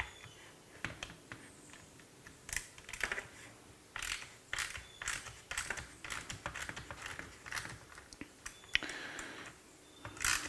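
Irregular clicks and clatter of small metal tools and parts being handled on a stainless steel bench, as driver bits are tried on the screws of an accelerator pedal.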